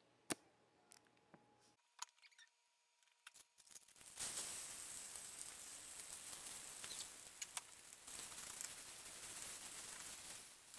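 A few sharp clicks. Then, about four seconds in, a steady sizzle starts as packaged veggie fried rice hits a hot, oiled stainless pan and is stirred with a wooden spoon.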